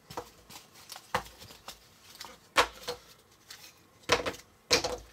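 Jigsaw puzzle pieces being lifted out of a round plastic tray and handled on a table: several sharp clicks and taps with quieter rustling between.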